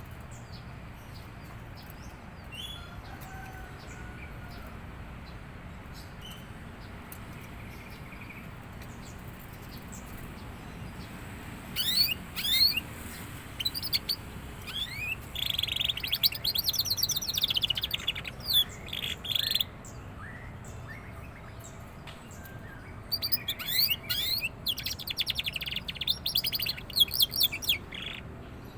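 Young canary coming into song, giving spells of rapid high trills and chirps. The song starts about twelve seconds in, breaks off, and resumes for a second spell near the end.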